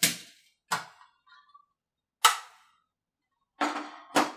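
Sharp clicks and knocks of a plastic drill bit case being handled, closed and set aside, about five separate knocks with a cluster near the end.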